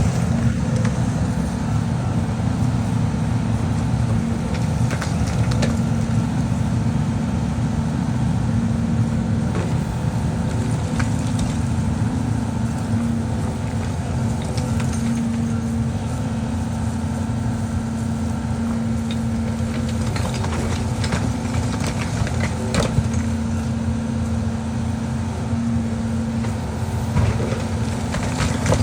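Heavy demolition machine's diesel engine running steadily under load, with scattered cracks and crunches of debris being broken and crushed.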